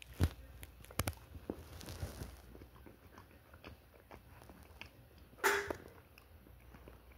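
A person chewing a square of Warheads sour chocolate close to the phone's microphone: soft bites and small wet mouth clicks, with one louder short noise about five and a half seconds in.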